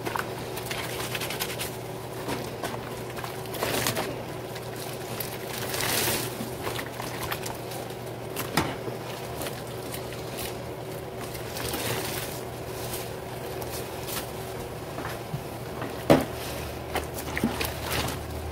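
Kitchen towels being hand-scrubbed in a sink of sudsy bleach water by gloved hands: wet fabric rubbing, squishing and sloshing in irregular swells, with one sharp tap near the end.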